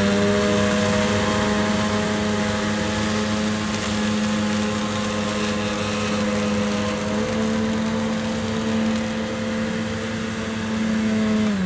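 Hoover Enigma bagged upright vacuum cleaner running at a steady pitch while it is pushed forward and back over dirt on short-pile carpet. At the very end it is switched off and the motor's pitch starts to fall as it winds down.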